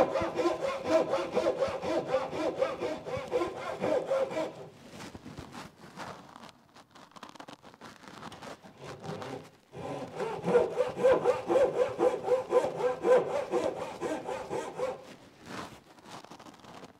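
Japanese pull saw cutting across a wooden stool leg in quick, even strokes, trimming the leg to a level line. The strokes go lighter about four and a half seconds in, pick up again around ten seconds, and ease off near the end.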